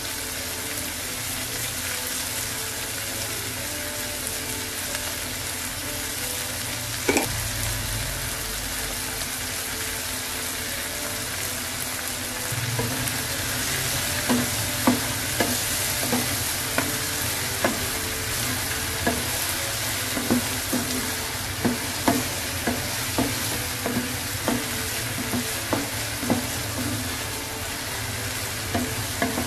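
Corn kernels sizzling steadily in a nonstick frying pan. From about halfway through, a wooden spatula stirs them, knocking and scraping against the pan roughly once or twice a second.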